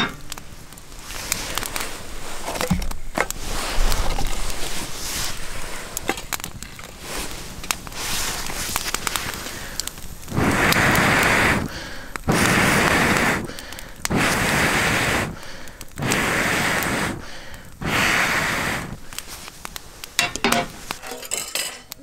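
Wood fire crackling in a metal fire pit, with scattered sharp pops and clicks. About ten seconds in come five whooshing puffs, each about a second long and a little apart: air blown through a metal fire blowpipe into the burning logs to fan the flames.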